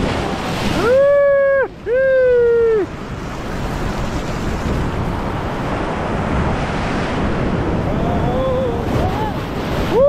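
Surf washing over a rock shelf, with wind buffeting the microphone. About a second in, two long high calls, each just under a second and falling off at the end, sound over the water.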